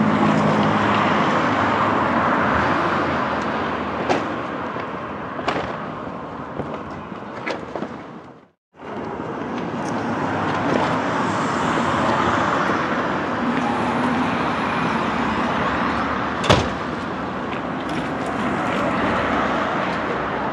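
Busy city street ambience: a steady wash of traffic with cars passing and a few sharp knocks and clatters. The sound fades and cuts out briefly about eight and a half seconds in, then the traffic comes back.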